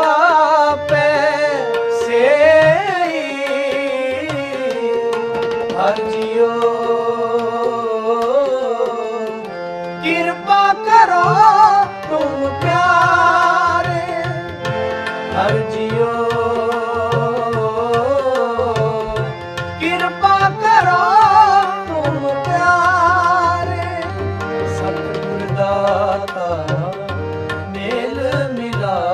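Sikh shabad kirtan: two harmoniums holding steady chords and a tabla keeping a busy beat, under a sung line that glides and wavers.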